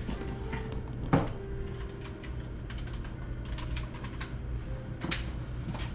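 Computer keyboard being typed on in short runs of key clicks, with one sharper knock about a second in, over a steady low hum.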